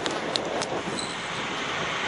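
Steady rushing roar of jet engines on a carrier flight deck, with a few sharp clicks in the first second.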